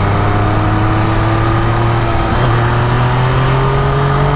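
MV Agusta F3 800's inline three-cylinder engine pulling hard under acceleration in one gear, its note rising slowly and steadily as the revs climb.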